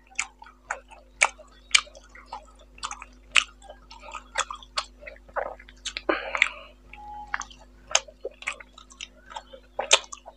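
Close-miked chewing and lip-smacking of a mouthful of rice and boal fish curry eaten by hand: a run of sharp wet mouth clicks, a few each second.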